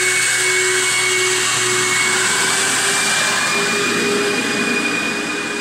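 BlackBoxVac Hurricane vacuum hold-down pump's regenerative blower motors running with a steady whine over a rushing hum. Its tones shift slightly up in pitch about halfway through.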